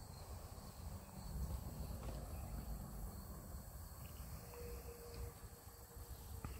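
Outdoor ambience over open fields: wind rumbling on the microphone, with a faint, steady, high chirring of crickets behind it.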